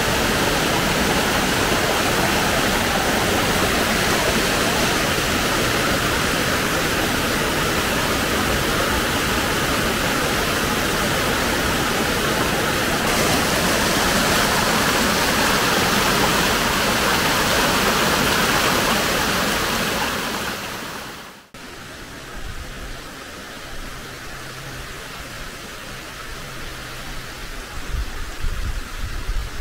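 Loud, steady rush of water, cutting off abruptly about two-thirds of the way through. A much quieter outdoor background follows, with a faint low hum and a few soft bumps near the end.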